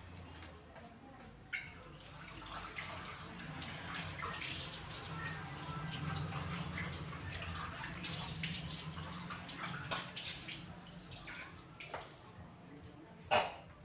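Pork brain soup simmering in a pan, bubbling and popping irregularly over a low steady hum. A sharp click comes about a second and a half in, and a louder one near the end.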